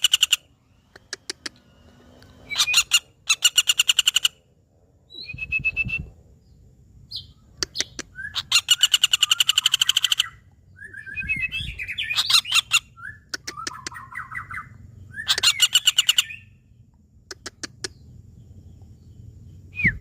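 Woodpecker (pelatuk bawang) calling in fast rattling bursts of rapidly repeated sharp notes, about half a dozen rattles with short squeaky calls between them. Two brief low thumps occur, one around five seconds in and one around eleven seconds in.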